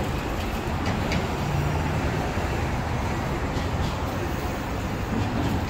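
Steady city street traffic noise from passing vehicles, with a short low engine hum about a second and a half in.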